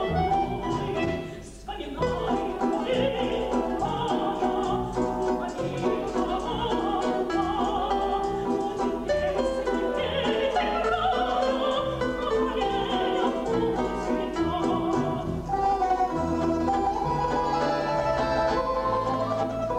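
A woman singing a song in a trained, operatic style, with vibrato, accompanied by a folk-instrument ensemble.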